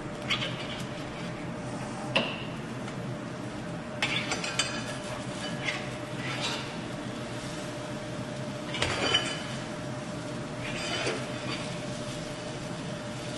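Metal spatula scraping and tapping against a small cast iron skillet while folding eggs, a dozen or so short scrapes and clinks scattered through, the sharpest about two seconds in and around nine seconds, over a steady low hum.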